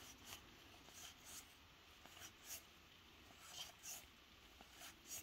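Faint, soft swishes of cardboard trading cards sliding against each other as a handheld stack is flipped through, card by card, about eight times.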